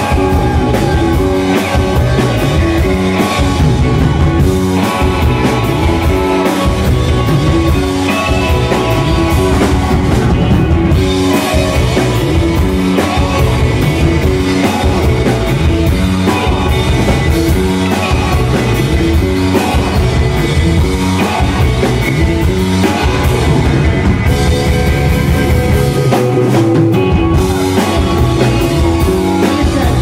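Live rock band playing loudly and steadily: electric guitars, keyboard and drum kit, with a singer's voice over them.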